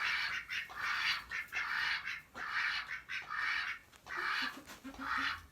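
Duck giving a steady series of raspy, hoarse quacks, about two a second.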